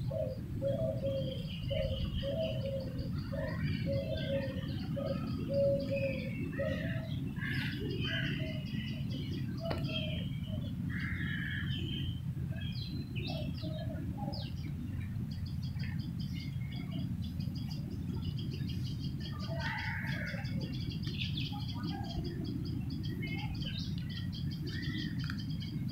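Several birds chirping and calling, with a run of low repeated notes, about two a second, through the first seven seconds. A steady low rumble runs underneath.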